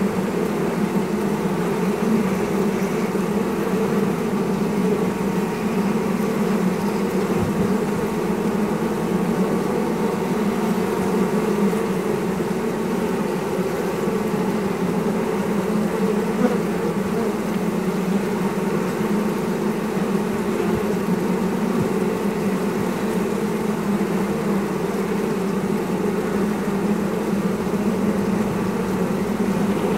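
Honeybee colony humming inside the hive: a steady, dense buzz of many bees at once.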